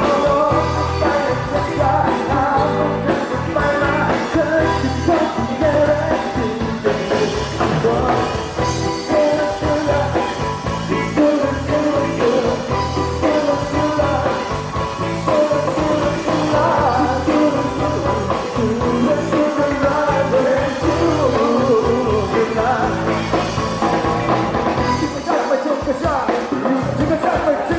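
Live band playing an upbeat pop-rock song: a sung lead vocal over bass guitar, drums, keyboard and electric guitar.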